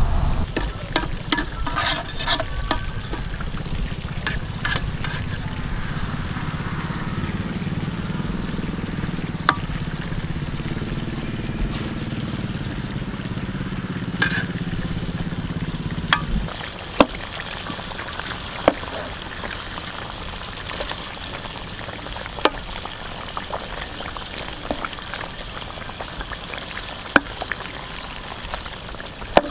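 Chicken legs deep-frying in hot oil in a metal wok, a steady sizzling and bubbling, with scattered sharp clicks of a metal skimmer against the pan. A low rumble underlies the first half and stops abruptly a little past halfway.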